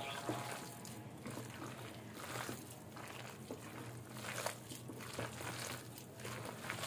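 A hand squishing and kneading a thick, wet gram-flour batter with sliced potato, onion and spinach in a glass bowl: soft, irregular wet squelches, one every half second or so.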